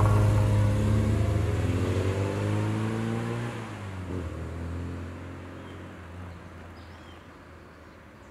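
Classic Mini's A-Series four-cylinder engine pulling away, its pitch rising as it accelerates, then fading steadily as the car drives off into the distance.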